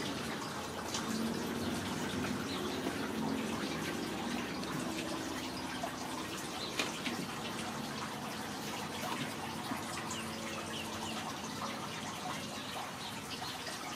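Steady trickle of running water, with scattered light clicks and taps and one sharper tap about halfway through.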